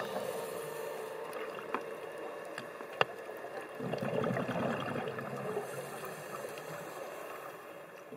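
Underwater camera audio on a scuba dive: gurgling bubbles from the diver's regulator and water noise, with two sharp clicks, the second louder, and a louder swell of bubbling a little past the middle. It fades down near the end.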